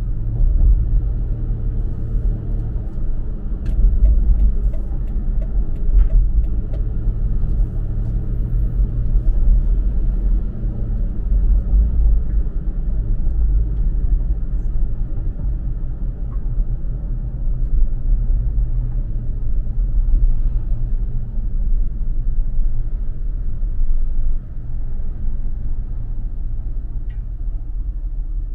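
Toyota FJ Cruiser's 4.0-litre V6 and tyres giving a steady low rumble while driving at an even pace on a suburban road.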